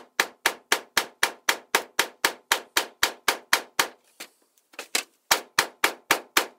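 Hammer tapping a new bearing into a scooter wheel's hub: sharp, even taps about four a second, driving the bearing into its seat. About four seconds in there is a brief pause, then a few more taps.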